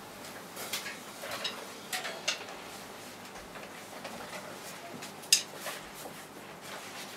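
Light scattered clicks and taps of drumsticks being handled, with one sharp click a little past five seconds in. The drums are not being played.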